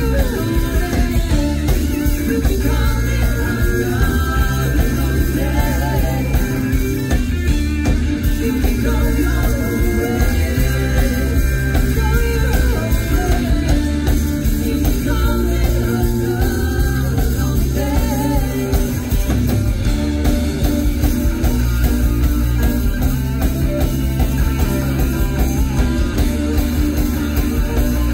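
Live rock band playing a song: singing over electric guitar, bass guitar and a drum kit.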